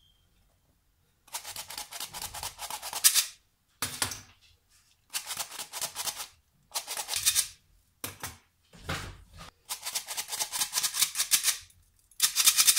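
Metal flour sifter being worked in short bursts, sifting flour into a bowl: a rapid ticking rattle that comes in about eight spurts with brief silent pauses between them.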